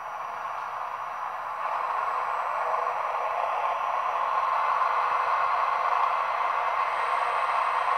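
Sound decoder in an Acme model of an E402B electric locomotive, playing a recording of the real locomotive's traction-motor cooling fans through the model's small speaker. The fan noise swells over the first two seconds, then holds steady as the model starts to move.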